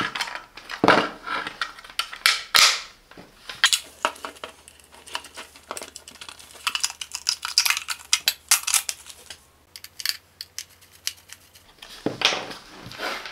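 Hard plastic clicks and knocks from handling a handheld digital multimeter while a 9-volt battery is snapped onto its clip and the battery compartment is fitted; the clicks come in irregular clusters, busiest in the first few seconds.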